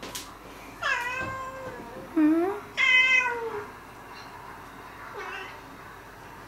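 Domestic tabby-and-white cat meowing: a long meow about a second in, then a short low call and another long meow in quick succession near the middle, and a faint short meow later.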